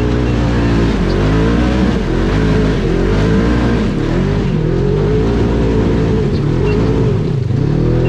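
Polaris RZR side-by-side's engine revving up and falling back over and over, roughly once a second, with a deeper drop about seven seconds in, heard from inside the open cab while driving a rough trail.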